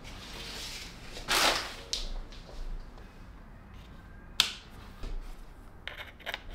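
Handling sounds at a desk: a short sliding swish about a second in, then a sharp click a little past the middle, and light clicks near the end as a Thunderbolt cable's plug is fitted into a port on the back of an Apple Studio Display.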